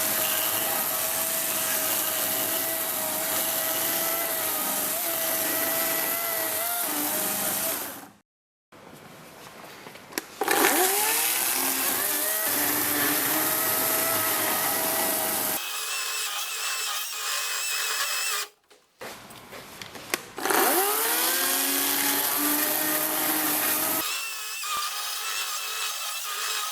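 A power tool cutting wood in a series of short clips: a steady run with a constant whine, cut off abruptly about eight seconds in, then bursts where the pitch swoops as the tool speeds up or bogs down.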